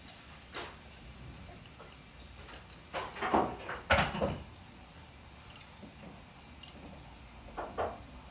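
A few short knocks and clatters: a single one about half a second in, a louder cluster of several from about three to four and a half seconds in, and two more near the end, over a faint steady background hiss.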